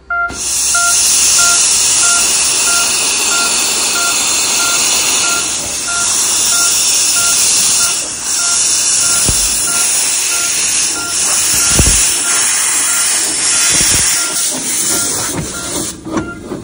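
British-built 15-inch narrow-gauge steam locomotive blowing off steam: a loud, steady hiss that eases briefly twice and dies down near the end.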